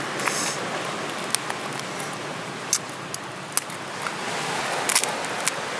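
Cooked crab shell being cracked and pulled apart by hand: a few sharp snaps and crackles over a steady background hiss.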